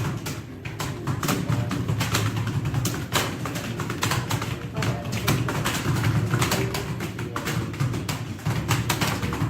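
Fast typing on a computer keyboard: an uneven stream of key clicks, several a second.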